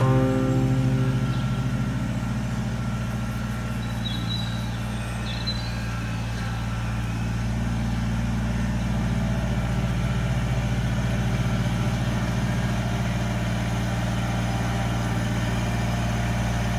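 Kubota BX23S compact tractor's three-cylinder diesel engine running steadily as the tractor drives about with its front loader.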